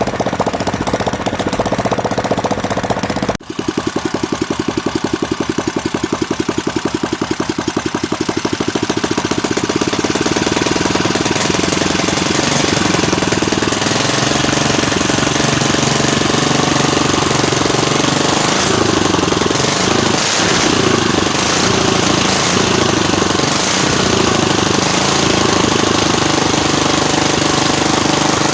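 Ketinting longtail boat engine running steadily with a rapid, even exhaust pulse. It breaks off briefly about three seconds in, then runs on, a little louder after about ten seconds.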